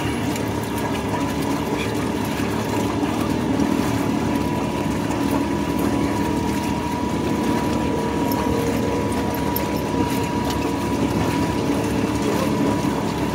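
Side-by-side UTV engine running steadily, with a thin steady whine over its hum.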